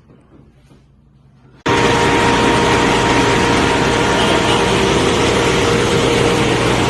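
A loud, steady machine noise, engine-like, with a constant hum running through it. It cuts in abruptly about a second and a half in.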